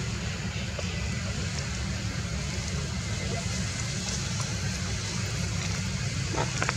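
Steady low rumble with a fainter hiss over it, like outdoor background noise, with a few faint clicks near the end.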